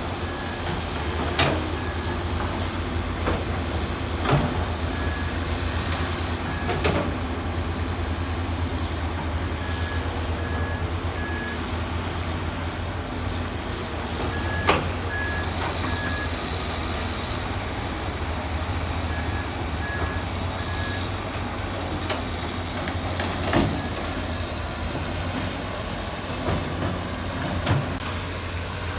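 Heavy diesel earthmoving machine running steadily with a low drone, while a reversing alarm beeps in sets of three every few seconds. Several sharp metallic clanks are heard.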